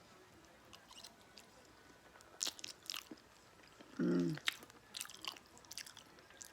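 A person chewing spaghetti close to the microphone: wet mouth clicks and smacks. A short hummed "mm" about four seconds in.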